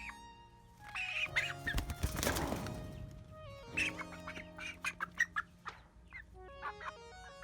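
A Cornish hen squawking and clucking as it is caught and held, with a loud noisy scuffle about two seconds in, over background music.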